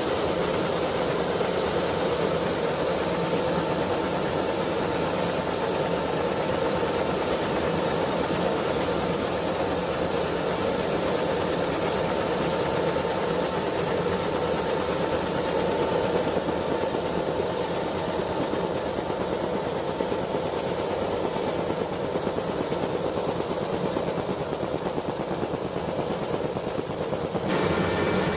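Steady, unbroken mechanical noise with a faint high whine running through it, changing slightly near the end.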